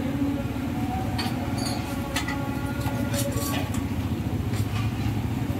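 Busy street ambience: a steady low traffic rumble with background voices and a few light clinks.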